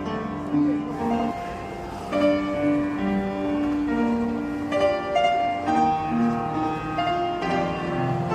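Background music with a piano melody, one note following another.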